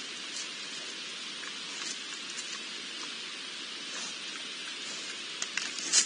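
Steady hiss with faint scattered ticks and rustles; near the end a few louder, sharp crackles as a wild boar steps through dry leaf litter and undergrowth.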